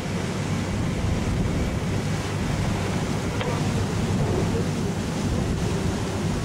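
Wind buffeting the microphone over the steady low rumble of a lake boat underway, with water rushing past the hull.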